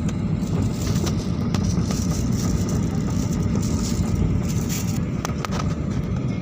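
Steady low rumble and hiss of an airliner's cabin noise, with a few faint clicks.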